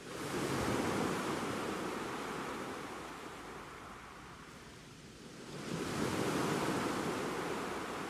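Sea surf: a wave washes in right at the start and fades away over about five seconds, then a second wave swells up about five and a half seconds in and slowly ebbs.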